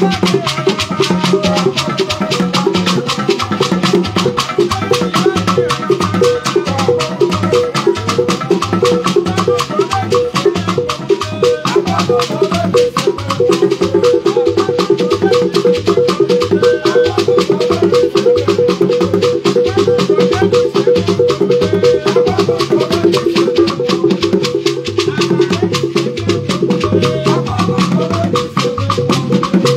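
Igbo Ogene music played on percussion: a fast, steady rhythm of drum strikes with a shaken gourd rattle. A quick repeated pitched note joins in about halfway and stops a couple of seconds before the end.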